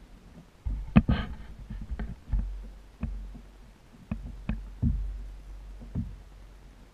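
Irregular knocks and thumps of handling noise, about eight over five seconds and loudest about a second in, as the camera is moved and repositioned in the skiff.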